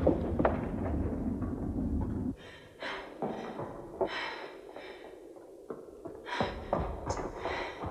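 A person breathing hard in a run of short breaths, over a low rumbling noise that drops away about two seconds in and comes back near the end.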